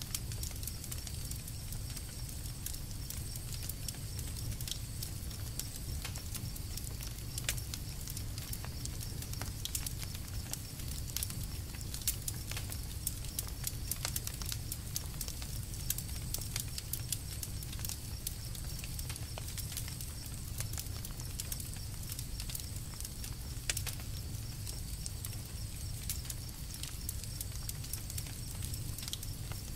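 Campfire burning, with irregular crackles and sharp pops from the wood over a low, steady rumble of the flames.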